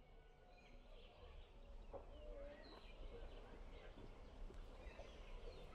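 Faint outdoor ambience of many birds chirping, scattered short calls over a low rumble, slowly growing louder as it fades in.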